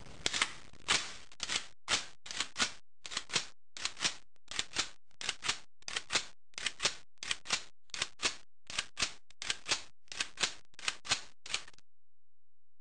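A long, fairly regular run of sharp mechanical clicks, about two a second, that stops abruptly near the end.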